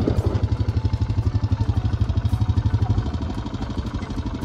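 ATV engine idling with a steady, rapid pulse.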